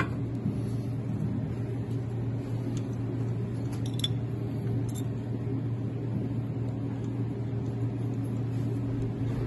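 A steady low hum, like a workshop machine or electrical hum, runs throughout. Faint clicks and taps come around four and five seconds in as the compression-tester hose is moved to the next cylinder's spark-plug hole on the Daewoo F8CV engine.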